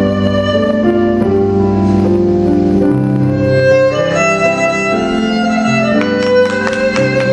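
Violin playing a melody in long held notes over a keyboard accompaniment; about six seconds in, sharper struck notes join in.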